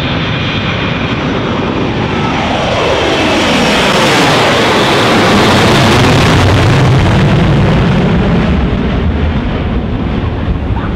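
McDonnell Douglas MD-82 jetliner taking off and passing low overhead. The roar of its rear-mounted Pratt & Whitney JT8D turbofans swells to a peak and drops in pitch as it goes by, then settles into a lower rumble.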